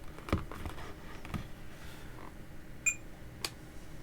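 A few light clicks and knocks as a digital multimeter is handled and set up, with one short, high electronic beep about three seconds in.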